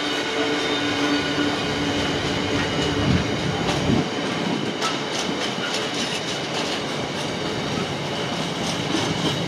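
Container flat wagons of a freight train rolling past: a steady rumble with a steady whine over the first three seconds, then rapid clicking and clatter of wheels over the rail joints.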